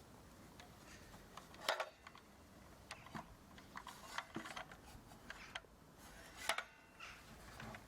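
Scattered light clicks and knocks of handling, a dozen or so irregular taps with two sharper knocks, about two seconds in and near the end; no saw motor is running.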